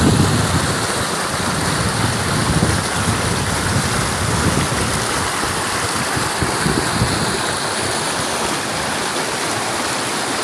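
Steady rush of flowing water, with irregular low gusts of wind on the microphone in the first half.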